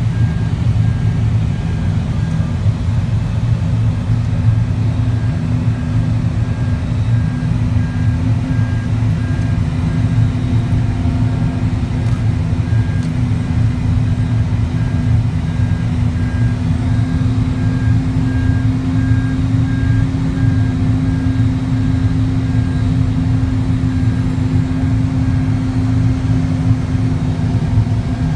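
Aircraft pushback tug's diesel engine running steadily with a loud low rumble while it moves an Airbus A380 on its nose gear. A faint beep repeats at a regular pace behind it.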